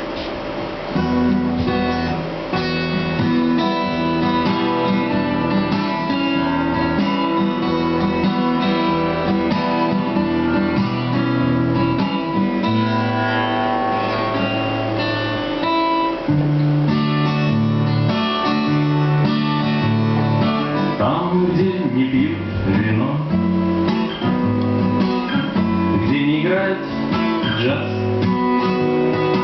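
Acoustic guitar playing the instrumental introduction to a song: chords and picked melody notes, with no singing.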